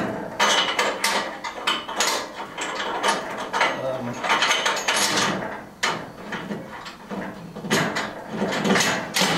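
Hand tools and metal hardware clicking and clattering in irregular bursts on a workbench during bolt-together assembly.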